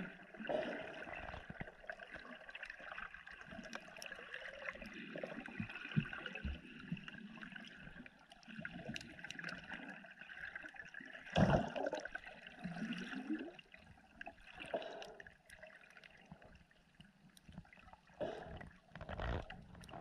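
Water sloshing and gurgling close to the microphone, with scattered small knocks and one louder thump about eleven and a half seconds in.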